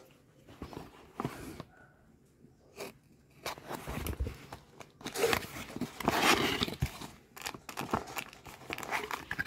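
Cardboard box being opened: scissors cutting at the tape, then irregular tearing, scraping and rustling of cardboard and paper as the lid comes open. The handling is loudest a little past the middle.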